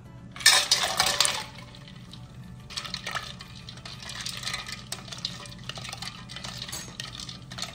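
Ice cubes tipped from a glass measuring cup splash into a stainless steel pot of brine, loudest for about a second starting half a second in. Then a wooden spoon stirs the floating ice, the cubes clinking and sloshing in the liquid to cool the brine.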